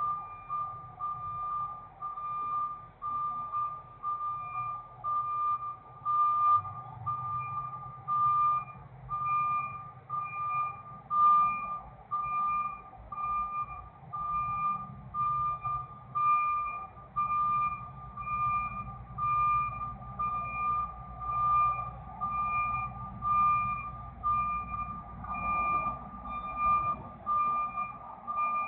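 Tractor-trailer reversing alarm beeping steadily about once a second while the rig backs in, over the low rumble of its diesel engine, which grows louder a few seconds in.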